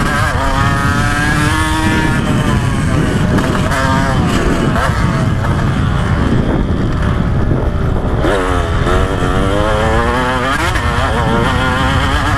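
2015 KTM 125 SX single-cylinder two-stroke dirt bike engine being ridden hard, revving up and easing off over and over. It backs off about six seconds in, dips low, then winds back up again.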